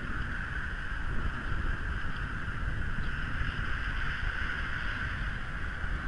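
Wind buffeting an outdoor nest-camera microphone in a snowstorm: a steady low rumble with a hiss over it. A faint high chirp comes about three seconds in.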